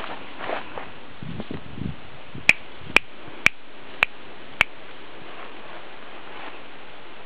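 Five sharp clicks, evenly spaced about half a second apart, made to get a Yorkinese puppy to look up. Before them comes soft rustling as the puppy moves about in dry grass.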